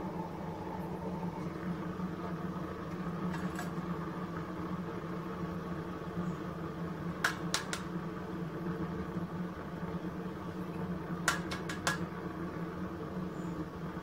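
Propane burner of a coffee-can furnace running with a steady hum. Sharp metal clinks cut through it, three about halfway through and four in quick succession near the end, as the furnace lid and a steel rod knock against the can and crucible.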